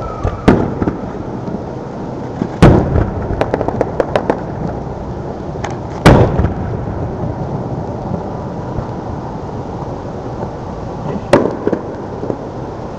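Aerial firework shells bursting: a sharp report about half a second in, a loud bang at about two and a half seconds followed by a quick string of crackling pops, another loud bang at about six seconds, and one more near the end. Each bang trails off in an echo.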